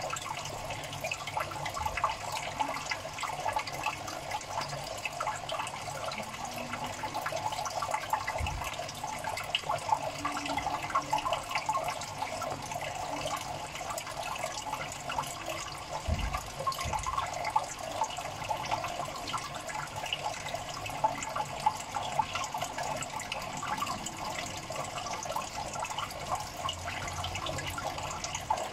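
Steady trickling, bubbling water in a small tank, with a couple of dull low bumps partway through.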